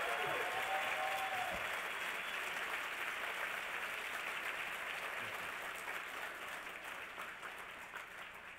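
Audience applause, steady at first and then dying away over the last couple of seconds.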